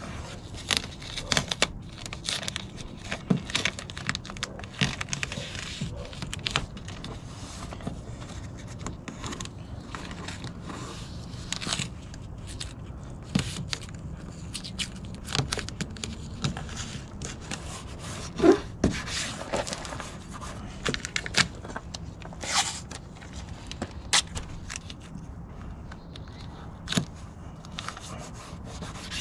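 Blue painter's tape being peeled off the roll, torn and pressed around a plastic headlight lens and bumper: an irregular series of crackling peels and short rips with rubbing in between.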